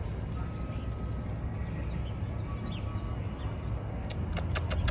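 Steady rumble of city traffic with a few faint bird chirps. A quick run of sharp clicks comes near the end.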